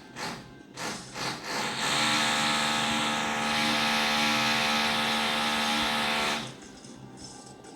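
Renovation power tool in the flat below, heard through the floor: a few short bursts, then a steady, loud motor whine for about four and a half seconds before it cuts off.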